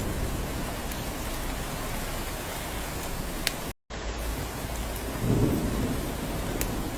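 Steady rain falling on a cabin, with a few sharp drips and a low rumble of thunder swelling a little after five seconds in. The sound cuts out completely for a split second about halfway through.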